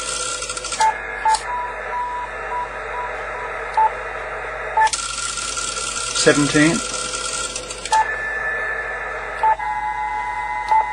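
Yaesu FT-450 HF transceiver's built-in antenna tuner tuning up on one band after another. The band hiss from the speaker cuts out while steady tones and short beeps sound, with a few clicks, then comes back when a match is found. The antenna tunes on each band.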